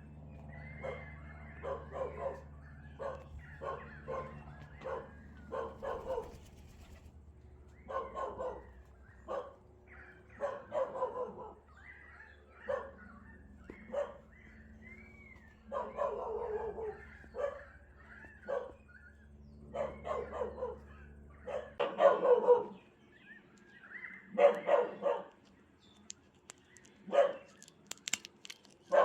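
A dog barking repeatedly at irregular intervals, over a low steady hum that stops about three-quarters of the way through.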